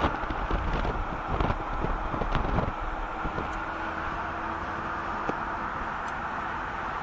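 Steady road and engine noise inside a moving car, picked up by a phone's microphone. Irregular low rumbles and buffeting come in the first three seconds, then the noise settles to an even hum.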